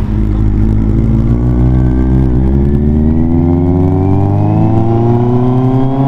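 Kawasaki Z800's inline-four engine with an SC-Project exhaust, pulling away under acceleration, its pitch climbing steadily through one long pull with a brief dip about two and a half seconds in.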